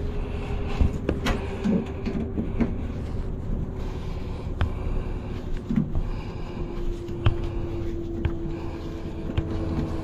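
A machine's steady hum that slowly drops in pitch, with scattered sharp knocks and rustling from hands working close by.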